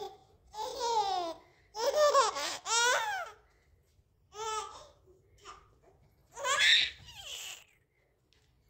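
A baby of about ten months laughing and babbling in several short bursts, the high pitch swooping up and down.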